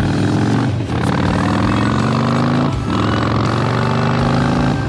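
Harley-Davidson Softail Slim's V-twin engine pulling hard under acceleration. Its pitch climbs, breaks off briefly about one second in and again near three seconds as it shifts up, then climbs again.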